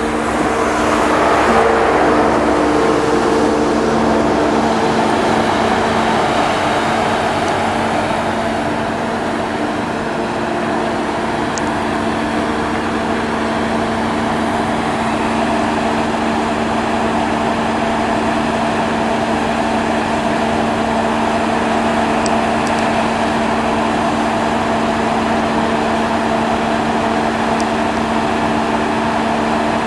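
Diesel engine of a GWR Class 43 HST power car running close by: a loud, steady drone held at one constant pitch, with a wash of rolling-stock noise that swells in the first few seconds.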